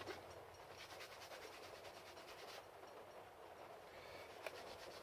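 Canvas cloth rubbed rapidly back and forth over a leather edge by hand, a faint, even rasping of quick strokes: hand burnishing of the leather edge to a shine. One small click near the end.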